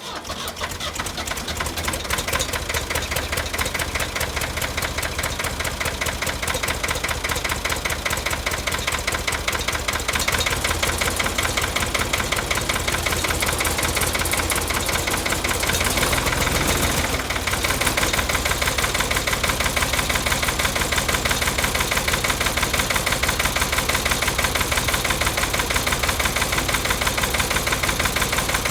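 Ford 4500 backhoe engine catching right at the start and then running steadily at idle with a fast, even knock, on a cold start after sitting all winter.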